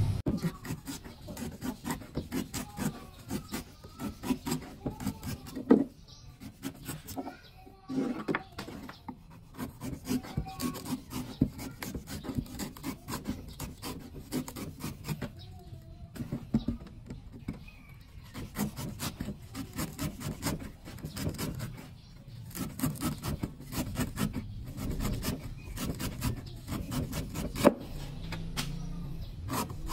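A large knife paring the husk of a young green coconut: a quick, continuous run of short shaving and scraping strokes, with a few louder knocks now and then.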